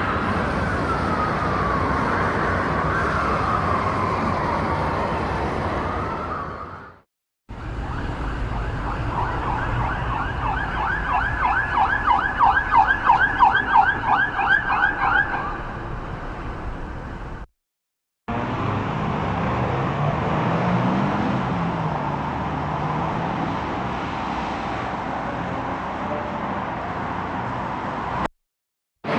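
Busy city street traffic noise in three separate takes, each ending in a brief silence. The first carries a slowly wailing emergency siren; in the second a siren yelps rapidly up and down, several sweeps a second, for about six seconds; the third is steady traffic rumble.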